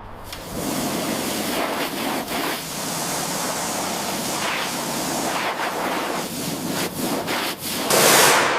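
Pressure washer spraying, a loud steady hiss of water jetting onto a surface over the low hum of its pump, surging and dipping as the jet moves and loudest near the end.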